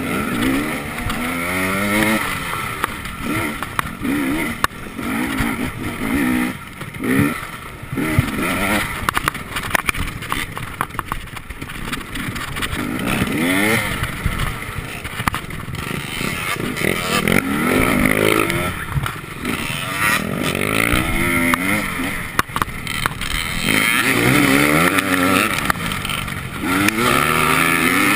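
Enduro motorcycle engine heard from on board while racing over rough dirt trail, revving up and dropping back again and again as the rider opens and closes the throttle, with knocks from the bike hitting bumps.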